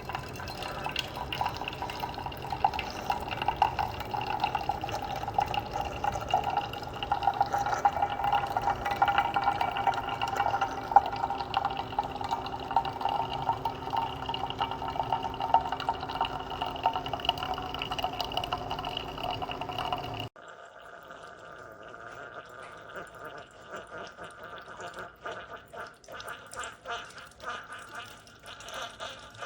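Keurig K-Express single-serve coffee maker brewing, coffee streaming into a mug over the machine's steady hum. The flow cuts off suddenly about twenty seconds in, leaving faint dripping.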